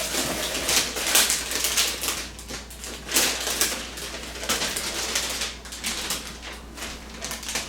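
Irregular rustling and crinkling of wrapping being handled, many short sharp crackles over a steady low hum.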